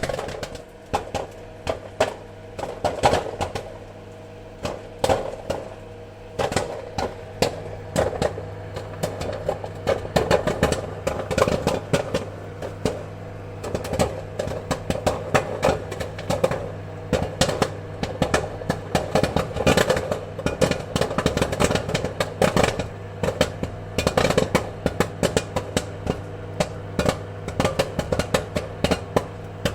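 Popcorn kernels popping: many sharp, irregular pops coming thick and fast throughout, over a steady low hum.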